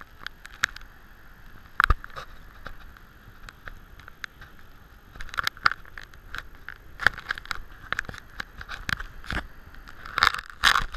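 Handling noise from a hand-held camera: scattered clicks and scrapes over a steady hiss, with a cluster of clicks near the end.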